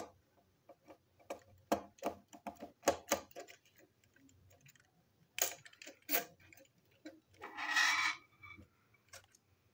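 Irregular light clicks and taps of a small screwdriver working a screw into a plastic Plarail toy locomotive body, with the plastic parts knocking as they are handled. A short scraping rustle comes near the end.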